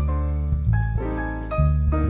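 Background jazz-style piano music over low bass notes, with the notes changing every half second or so.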